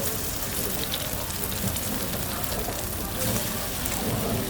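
Batter-coated food deep-frying in hot oil: a steady sizzling hiss with scattered small crackles.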